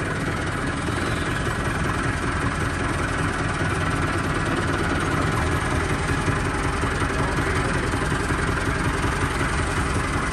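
Massey Ferguson 385 tractor's four-cylinder diesel engine running steadily while the tractor drives slowly and turns, heard from the driver's seat.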